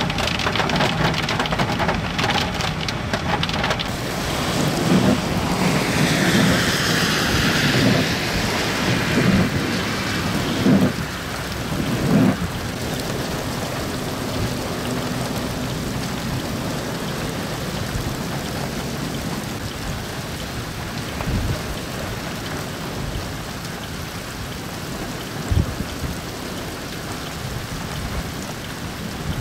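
Heavy rain falling steadily in a hailstorm, with several low thumps and rumbles, the loudest about eleven and twelve seconds in.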